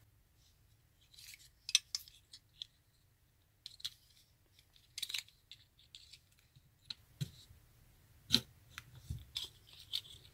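Utility-knife blade scraping and cutting under an old rubber gasket on a lathe coolant pump's switch housing. It comes as a series of short scratchy clicks and scrapes with pauses between.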